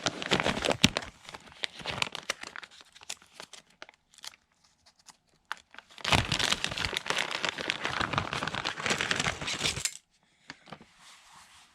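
Packaging of the Clip-N-Cull retrofit clips being opened by hand: crinkling and tearing in two long stretches, one at the start and one from about six to ten seconds in, with scattered clicks between.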